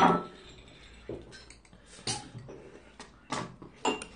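A person eating with chopsticks and a spoon: a loud, sudden noise as a mouthful goes in, then four short mouth and utensil sounds about a second apart.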